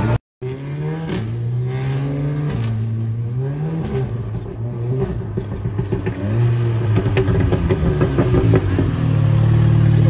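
Volkswagen Golf's engine revving, its pitch rising and falling several times, then settling into a steady idle about nine seconds in.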